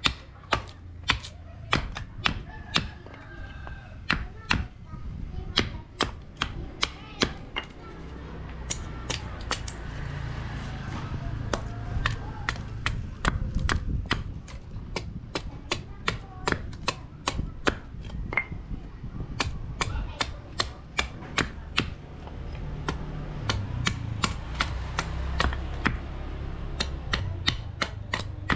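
Hand hammer striking steel in a blacksmith's forge, two to three blows a second with short pauses, over a steady low hum.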